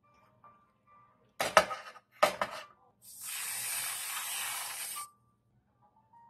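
Two sharp knocks about a second and a half and two seconds in, then a whipped cream dispenser sprays cream with a steady hiss for about two seconds.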